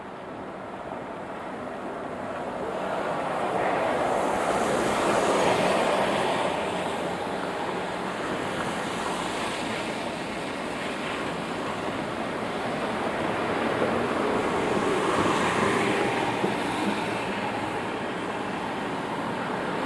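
Rain with traffic on wet city streets: the hiss of tyres on wet road swells as a vehicle goes by a few seconds in, and again about three-quarters of the way through.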